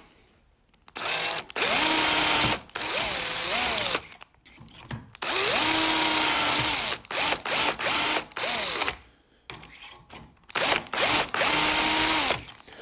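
Cordless drill boring bolt clearance holes into wood through a stainless steel drill guide in an aluminium jig. The drill starts and stops repeatedly in runs of one to two and a half seconds with short bursts in between, its motor whine rising at each start and wavering as the bit bites.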